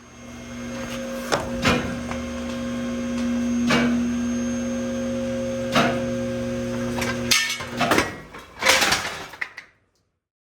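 Auto lift's electric hydraulic pump motor running with a steady hum, broken by a few sharp knocks. It cuts off about seven seconds in, followed by a burst of loud metal clanks and a heavy clatter.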